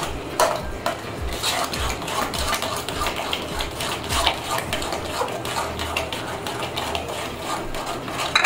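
Steel ladle stirring thick palm-fruit batter in a metal kadai, scraping along the pan and clinking against its sides at irregular moments as semolina is mixed in.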